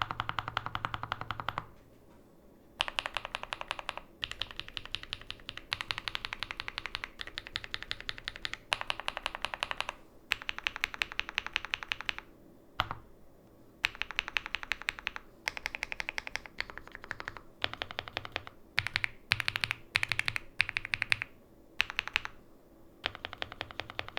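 Fast typing on a Heracles 80 mechanical keyboard with factory-lubed KFA N20 (Laughing Gas) switches and GMK keycaps: runs of rapid keystrokes a few seconds long, broken by brief pauses.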